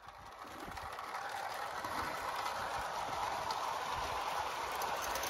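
Clockwork 0 gauge Walker-Fenn 4-6-0 tank locomotive and its long rake of fish vans running over the track: a steady rolling rush with faint scattered clicks, growing louder over the first couple of seconds.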